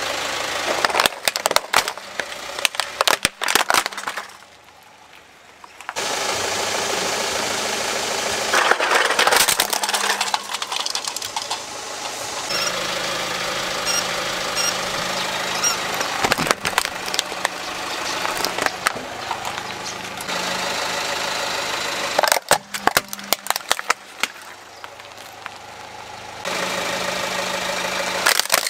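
A car engine idling while its tyre creeps over toys on rough concrete, with several spells of cracking and crunching as the toys are crushed under the tyre.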